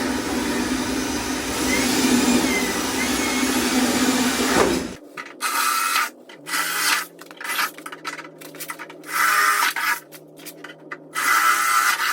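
Power drill running, drilling the mounting holes through the fender along a taped template. It runs steadily for about five seconds, then in repeated short trigger bursts.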